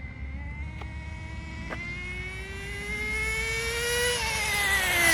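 Team Associated NTC3 nitro RC car's engine running under throttle, its pitch climbing steadily for about four seconds and then falling away, growing louder toward the end. No gear change is heard in the rise: the two-speed transmission isn't shifting, and the owner thinks the shift point needs adjusting.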